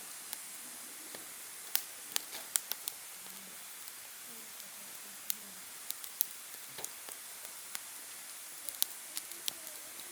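Open wood fire crackling: sharp, irregular pops over a steady hiss.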